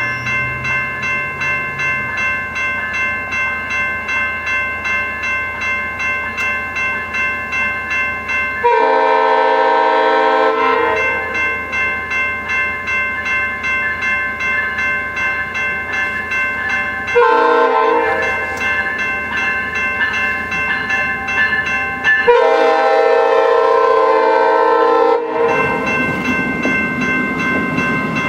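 Level-crossing bells ringing steadily at about two strokes a second, while a departing VIA Rail passenger train sounds its horn three times: long, short, long. Near the end the train's rumble rises as it rolls through the crossing.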